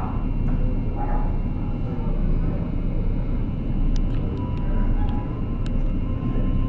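Steady low drone of a roll-on/roll-off ferry's engines, with faint voices and a few light clicks about four to six seconds in.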